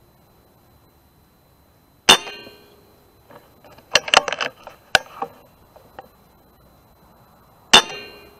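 Two shots from a Kral NP-02 PCP air rifle, about five and a half seconds apart, each a sharp crack with a brief metallic ring. Between them comes a quick run of clicks and knocks.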